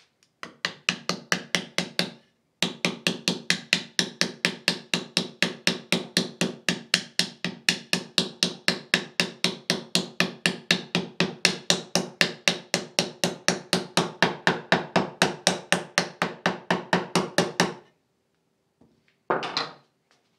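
Soft-faced hammer tapping a hardwood half-blind dovetail joint home for a dry fit: a long run of quick, even taps, about four to five a second, with a short pause about two seconds in. The taps stop a couple of seconds before the end, and a brief scrape follows.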